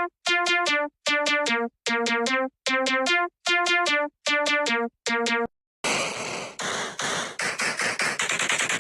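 Synthesizer music: a run of short, repeated note phrases, each about half a second with a brief gap between. About six seconds in it gives way to a harsh, static-like noise chopped in a quick rhythm.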